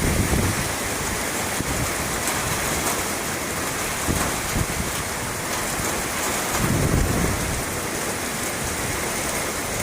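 Heavy rain falling steadily in a summer thunderstorm, with a low surge of wind or rumble near the start and again about seven seconds in.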